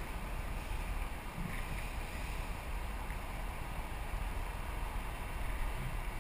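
Steady wind rumble on the microphone, with no distinct separate sounds.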